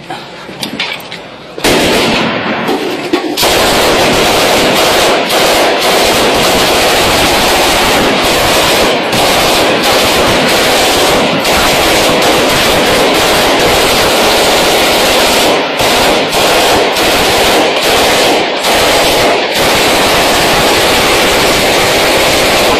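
Vehicle-mounted machine gun firing long, almost continuous bursts at close range. It starts about two seconds in and is loud throughout, with a few brief pauses in the second half.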